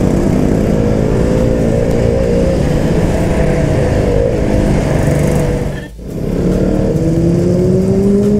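KTM RC200's single-cylinder engine running under way, with wind rush. Its pitch wanders, the sound drops out briefly about six seconds in, and then the pitch climbs steadily as the bike accelerates.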